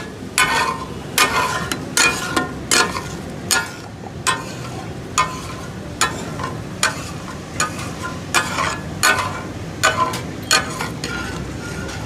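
Metal spatulas clanging against a hot iron tawa griddle in takatak style as food is chopped and mixed, with sharp ringing strikes about twice a second, irregular, over a steady sizzle.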